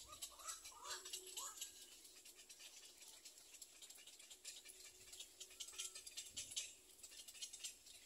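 Little egret chicks shifting and preening in a twig nest: faint, rapid crackling and rustling throughout, with a few faint chirps about a second in and again near six seconds.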